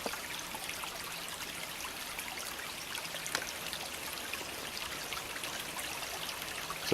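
Small creek trickling and running: a steady water sound with scattered small splashes.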